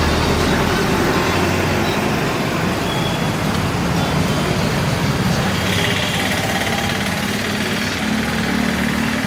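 Steady street noise with an engine running and traffic, a dense unbroken rumble with no pauses.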